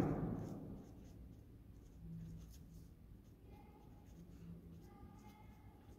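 Pen writing on paper, faint scratching strokes as a line of text is written.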